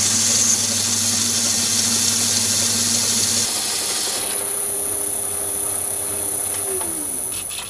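Myford ML7 metal lathe running and turning a bar, the cutting tool working along the rotating stock with a steady hum and high whine. About three and a half seconds in the cutting noise drops away to a quieter running sound, and near the end the hum falls in pitch as the lathe slows down.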